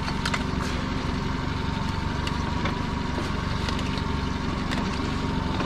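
Small boat's engine idling steadily, with a faint thin whine held above it and a few light clicks.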